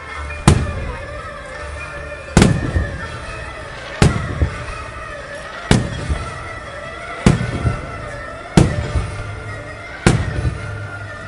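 Aerial fireworks shells bursting in the sky: seven sharp booms, about one every second and a half, each trailing off in a rumble.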